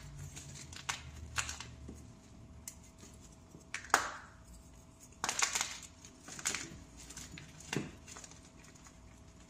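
Pressed powder blocks being crushed by hand: a run of crisp, dry crunches about a second apart, the loudest about four seconds in.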